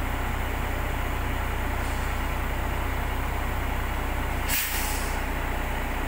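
Diesel engine of the heavy lifting machine running steadily under load while it holds a container van, with a brief loud hiss of air about four and a half seconds in.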